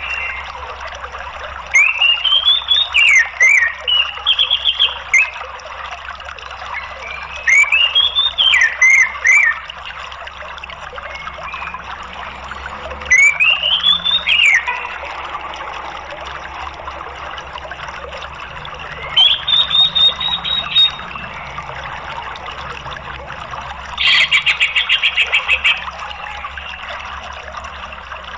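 Orange-headed thrush singing five separate phrases of rising-and-falling whistled notes a few seconds apart, the last a fast rattling run of notes, over a steady sound of running water.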